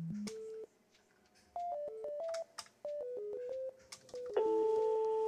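Electronic synth music: a quick run of single beep-like notes stepping up and down in pitch, broken by short pauses, then one long held note starting about four seconds in.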